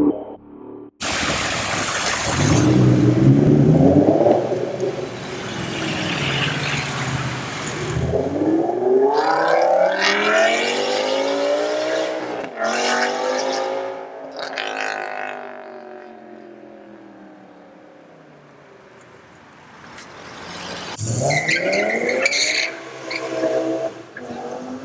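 BMW M5 E60's V10 with a loud custom exhaust, driven hard. About a second in, a sudden loud rushing noise with the engine under it lasts several seconds. Then the engine note climbs steeply through a gear change, falls away and fades as the car pulls off, and a shorter run of revs rises again near the end.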